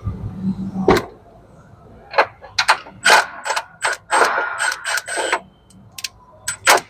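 Irregular metallic clicks and clanks of tools and a steel part being worked by hand, as a new drive-belt tensioner is worked onto its locating dowel and bolt. About a dozen sharp knocks come in quick clusters, some with a short metallic ring.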